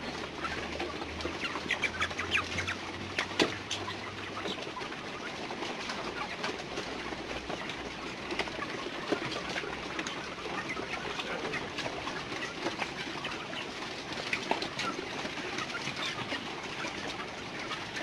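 A flock of young layer-breeder chickens eating at round hanging feeders: many small clicks of beaks pecking feed in the feeder pans, with scattered calls from the birds.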